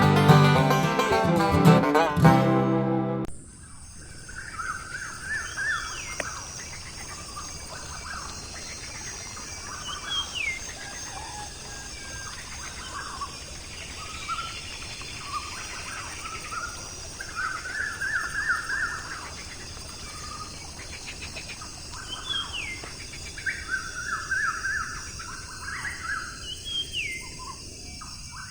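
Banjo-led bluegrass music that cuts off abruptly about three seconds in. After it, birds chirp in repeated short bursts, with now and then a brief falling whistle.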